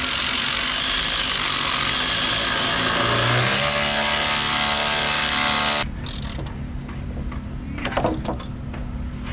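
Cordless drill boring into a wooden hull plank, running hard for about six seconds and then stopping suddenly. A few light knocks follow near the end.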